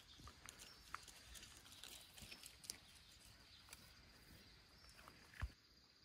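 Near silence with faint scattered rustles and ticks from a dog nosing and stepping through moss and brush, hunting for a frog. The sharpest knock comes about five and a half seconds in.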